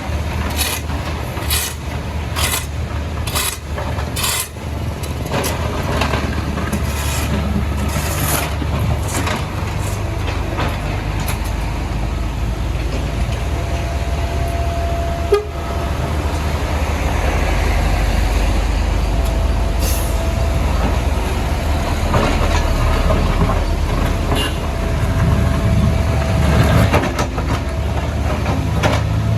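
Diesel engine of a CAT 462F backhoe loader running steadily under load, with a run of sharp knocks about once a second over the first ten seconds or so as the bucket breaks up the road surface. A thin steady whine sounds through the second half.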